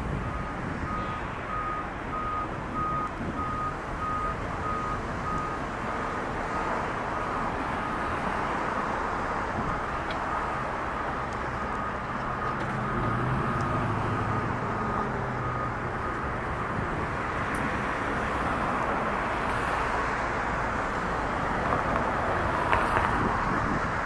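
Steady urban traffic noise with a vehicle's reversing beeper sounding an even run of short, same-pitched beeps that fade out about two-thirds of the way through. A vehicle engine rumbles low in the middle.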